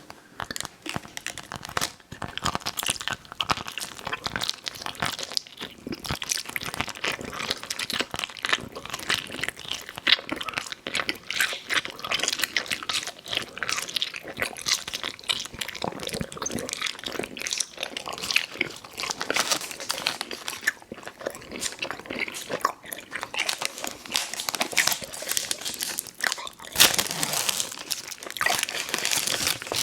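Close-miked eating sounds of Fruit Roll-Up candy being bitten and chewed: dense, rapid mouth clicks and chewing, with some crinkling.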